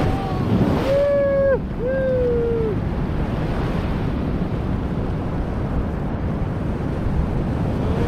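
Ocean surf breaking over a rock platform and washing across it, with wind buffeting the microphone. About a second in, two short cries rise over the surf, each falling away at its end.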